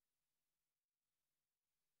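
Near silence: only a very faint hiss.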